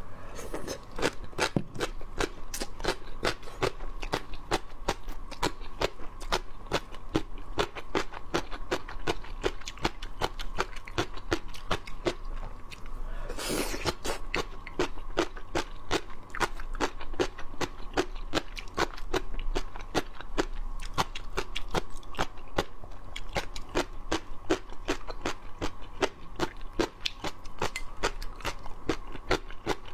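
Close-miked crunchy chewing of rehydrated gongcai (celtuce stem strips): a rapid, continuous run of crisp crunches, with one louder, longer burst about halfway through.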